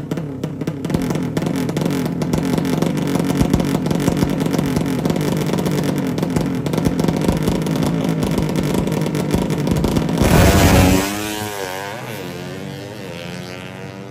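A 200 cc horizontal-cylinder ('sleep engine') drag bike engine runs rough and pulsing at high revs on the start line. About ten seconds in it goes to full throttle for the launch, the loudest moment. Then its revs climb and drop through a string of gear changes as it pulls away and fades.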